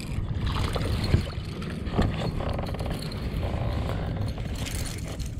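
Wind rumbling on the microphone and water lapping against a plastic kayak's hull, with a couple of sharp knocks from gear being handled about one and two seconds in.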